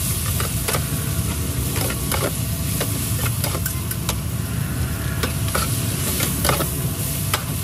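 Metal spatula scraping and clacking irregularly against a large, wide metal pan as yellow noodles and greens sizzle in oil, over a steady low rumble.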